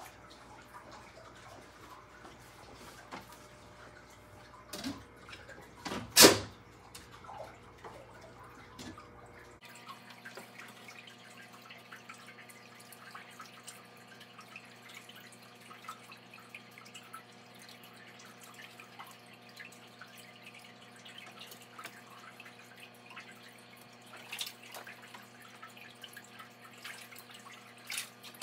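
Faint aquarium water trickling and dripping, with small splashes as a fish net is worked through the tank. A sharp knock about six seconds in.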